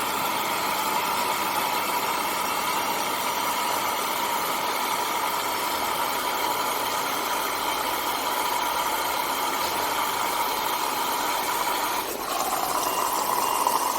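Water running into an IFB Senator Plus VX front-load washing machine through its pre-wash water inlet valve in service test mode: a steady hiss with a constant tone. It drops briefly about twelve seconds in, then carries on.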